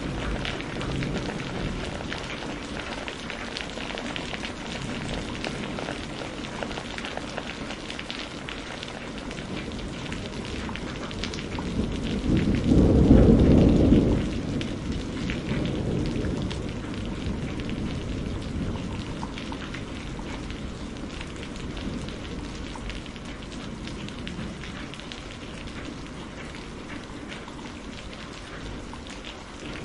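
Steady rain falling, with a roll of thunder that swells up about halfway through, is loudest for a couple of seconds, and then dies back into the rain.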